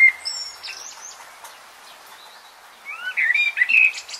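Small birds chirping in short rising and falling phrases, a burst at the start and another about three seconds in, over a steady hiss.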